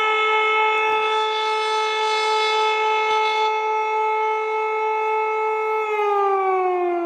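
Civil defense siren holding a steady wail, then starting to wind down, its pitch sliding lower, about six seconds in.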